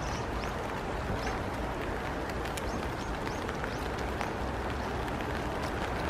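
Footsteps walking along a dirt forest path strewn with dry leaves, a steady pace of about two to three steps a second, over a steady hiss.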